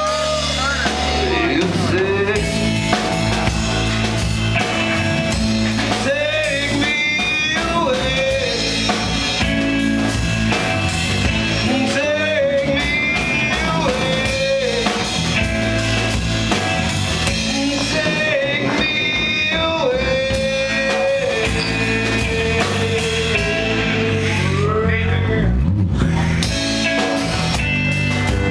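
Live blues-rock band playing: drum kit, electric guitar and bass guitar, with a harmonica played into the vocal microphone carrying a lead line of bent notes.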